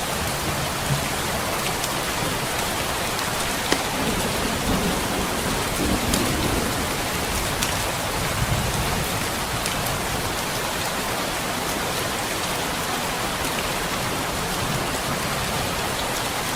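Heavy rain falling steadily, with a few sharp crackles from a log fire and a low rumble of distant thunder swelling and fading around the middle.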